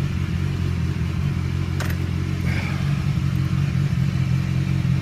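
BMW S1000XR's inline-four engine idling steadily through an Akrapovic slip-on exhaust with its baffle removed. A single light click comes about two seconds in.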